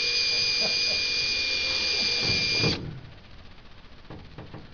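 Handheld power drill running at a steady high whine while drilling holes for an access port in an aircraft's aluminium wing skin. It stops abruptly about three seconds in, leaving a few faint ticks.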